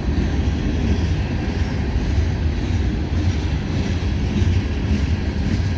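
CSX freight train cars rolling slowly past, their steel wheels on the rails making a steady low rolling noise.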